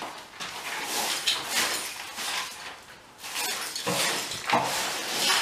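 Scrubbing: a run of rough, irregular strokes of a cloth or brush on a surface, with a short lull near the middle.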